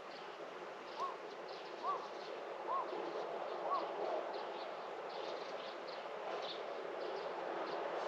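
Birds calling outdoors: one bird gives a short rising-and-falling whistled note four times, about a second apart, while others chirp in quick high notes throughout over a steady rushing background.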